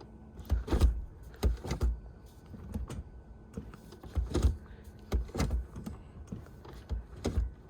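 Gear selector lever of a 2008 Mercedes A150 being shifted back and forth with the brake held, giving a string of clicks and clunks, mostly in pairs. The lever now moves freely out of park because the faulty brake light switch has been replaced and the shift lock releases.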